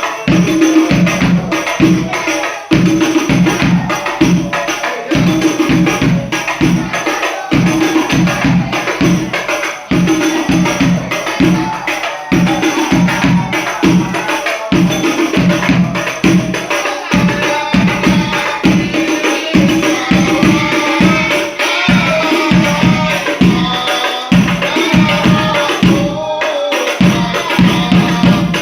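Sholawat devotional singing accompanied by rebana frame drums beating a steady, fast rhythm with jingles.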